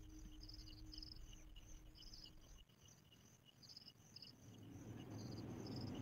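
Faint crickets chirping in short, high, repeated pulses over near silence. A low steady hum stops about halfway through, and a rushing noise swells near the end.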